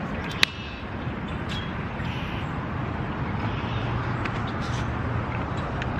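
Steady outdoor background noise with a low hum, broken by one sharp click about half a second in and a few faint ticks.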